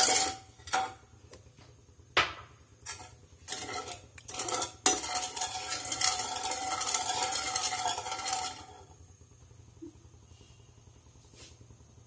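Steel ladle stirring sugar and water in a steel kadai to make sugar syrup, scraping the bottom of the pan and knocking against it several times. The stirring stops about nine seconds in.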